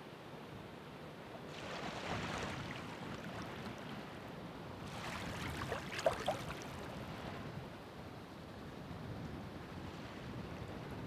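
Ocean waves breaking and washing in over a steady hiss of surf, two surges about three seconds apart, the second louder with a few sharp splashing clicks at its peak.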